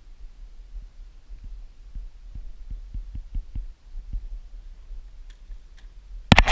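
Low steady rumble on the microphone with a quick, uneven run of soft low thumps, then a sudden loud rustling crackle near the end.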